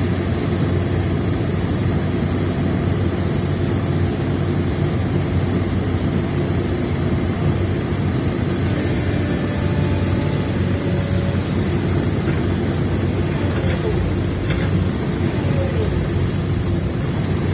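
Excavator's diesel engine running at a steady speed, a constant low drone.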